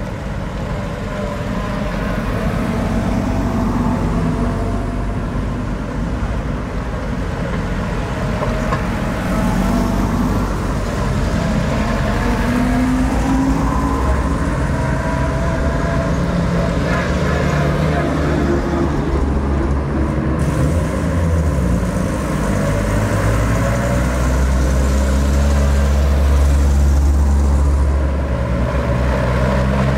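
Engines of vintage WW2 military vehicles passing in a convoy: a steady low running sound that swells and is loudest near the end.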